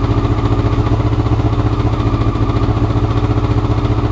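Honda CBR motorcycle engine idling roughly, a steady, evenly pulsing run with no change in speed. The rough idle is the fault the owner means to fix by changing the carburettor float needles.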